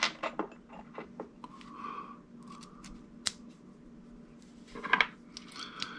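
Small parts handled by hand: light clicks and taps of a screw and a small 3D-printed gear being fitted together, with a few short rubbing sounds. One sharp click comes about three seconds in and a quick cluster of clicks near five seconds.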